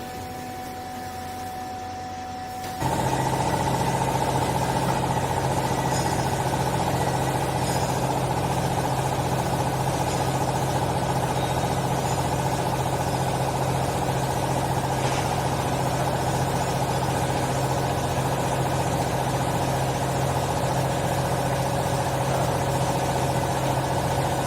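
Hydraulic baling press's pump motor kicks in about three seconds in and runs steadily, a loud even machine hum, with a fainter hum before it starts.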